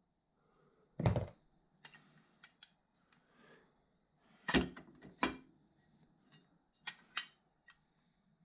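A series of irregular clunks and clicks from mechanical parts being handled, with no engine running. The heaviest knock comes about a second in, two more come around four and a half and five seconds in, and a quick pair comes near the end.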